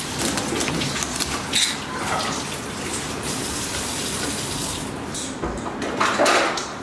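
Kitchen tap running into a sink with a steady rush, with a few light knocks of a knife on a plastic cutting board in the first couple of seconds.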